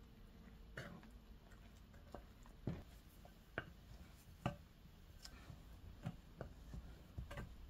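Plastic bowl scraper working stiff bread dough in a glass mixing bowl: faint, irregular knocks and scrapes as the scraper strikes and drags along the glass.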